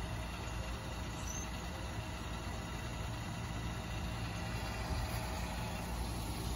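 2021 Cadillac XT5's 3.6-litre V6 idling steadily.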